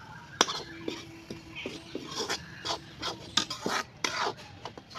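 Steel ladle scraping and clinking in a metal kadhai as thick spice masala is stirred, a string of short scrapes and knocks with one sharp clank about half a second in.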